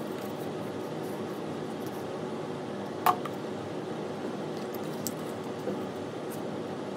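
Quiet handling of cardstock glider pieces and a tacky-glue bottle over a steady background hum, with one sharp click about three seconds in.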